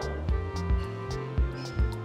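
Background music with a steady beat, a repeating bass line and held melodic notes.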